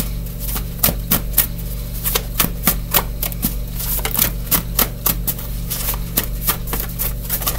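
A deck of tarot cards being shuffled by hand: an irregular run of crisp clicks and snaps, several a second, over a faint steady low hum.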